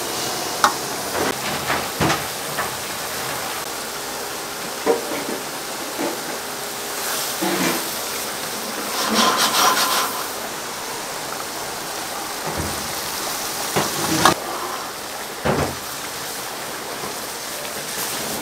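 Restaurant kitchen work: a steady hiss with scattered knocks, clatter and scraping on wood, and a louder stretch of noise about halfway through.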